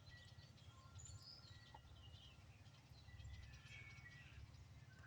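Faint wind chimes ringing now and then from across the yard in a light breeze, with faint bird chirps and a low wind rumble.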